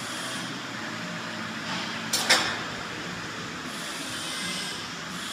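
Steady rushing noise of a small gas forge burning, with one short sharp metallic clank a little over two seconds in.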